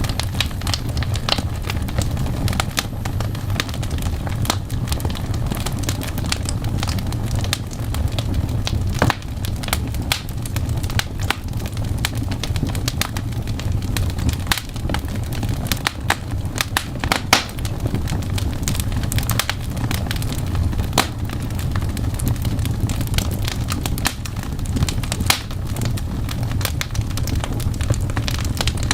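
Fireplace fire crackling, with irregular sharp pops over a steady low rumble.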